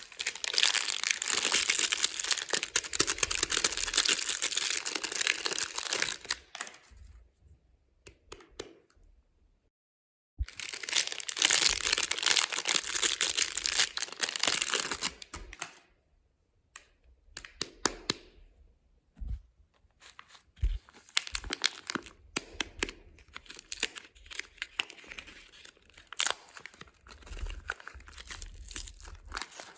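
Soap packaging being torn open and crinkled by hand in two long stretches, then lighter handling with scattered taps and rustles.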